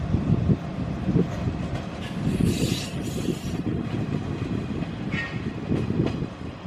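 Electric commuter train moving through the station, a low rumble with irregular clattering thumps from the wheels. A burst of hiss comes in about two seconds in and lasts about a second, and a brief squeal sounds around five seconds.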